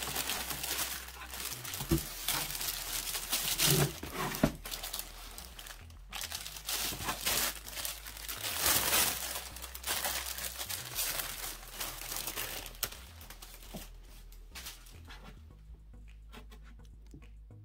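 Tissue paper crinkling and rustling as a shoe is unwrapped from it, with a few light knocks in the first few seconds; the crinkling dies away near the end.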